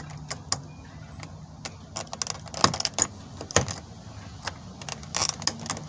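Irregular small metallic clicks and scrapes of a scribe prying at the retaining tab of a door lock cylinder, working the lock loose from the door.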